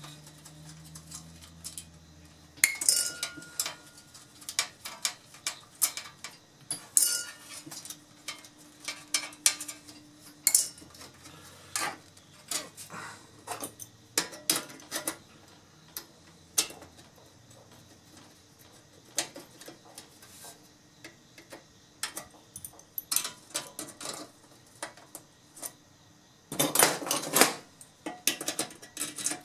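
Hand tools clinking, tapping and scraping on the sheet-steel chassis of a Samsung SyncMaster 940BW LCD monitor as it is taken apart: scattered sharp metallic clicks, with a denser rasping burst near the end.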